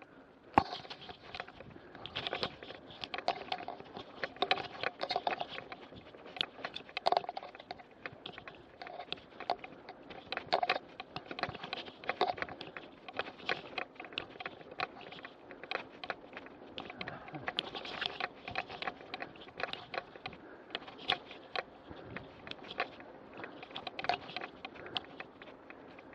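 Mountain bike rattling and clicking irregularly as it rides over a bumpy grass cart track, picked up by a handlebar-mounted action camera. The rattle starts suddenly about half a second in.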